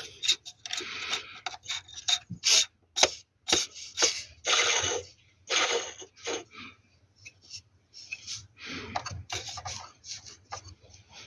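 BMW E39 water pump and pulley being turned and rocked, giving irregular short scraping rasps and sharp clicks: the sound of a bad water pump and its pulley.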